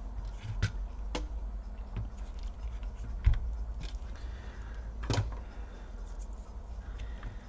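Handling noise as a laptop motherboard is lifted out of its casing and laid on a silicone mat: a few light clicks and knocks, with a louder dull thump a little after three seconds in, over a steady low hum.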